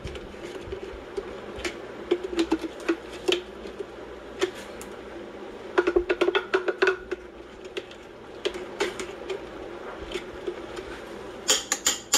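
Scattered light clicks and clinks of metal kitchen utensils against a metal pot, bunched about six seconds in and again near the end as a spoon goes into the pot, over a steady low hum.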